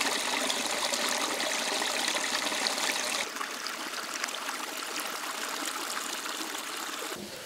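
Shallow stream trickling and splashing over rocks, a steady rush of water that drops slightly in level about three seconds in.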